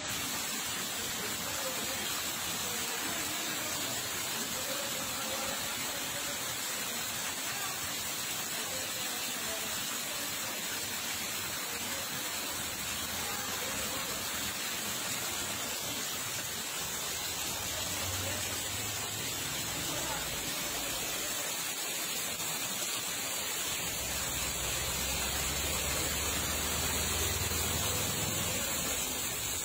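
Floodwater rushing steadily over the ground, a constant hiss of flowing water, with a low rumble coming in over the last third.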